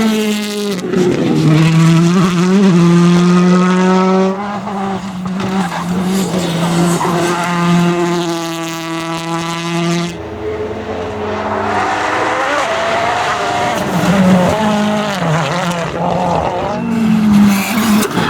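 Rally car engines at high revs, the pitch climbing and dropping again and again as the drivers change gear and lift off, with an abrupt change to another car's engine note about ten seconds in.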